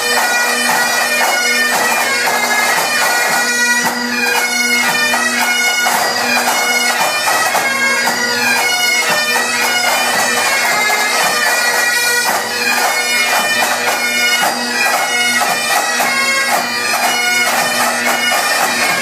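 Great Highland bagpipes playing a tune: the chanter's quick-changing melody over a steady drone.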